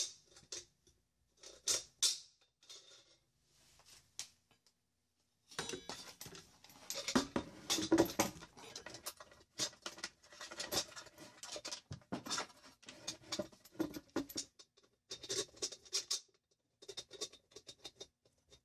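Handling noise as a homemade grinder stand is put together: a few scattered clicks and taps of a wooden disc on a metal square-tube arm. Then, from about five seconds in, denser scraping, rustling and knocking as an angle grinder and its cord are moved about on a wooden board.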